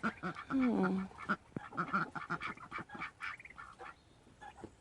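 Ducks quacking in a quick run of short, repeated calls that thin out and fade over the last second or so.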